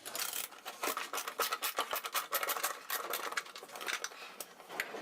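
Screwdriver backing screws out of a wooden drawer's false front: a dense run of quick, irregular clicks and scraping, with pauses near the middle and near the end.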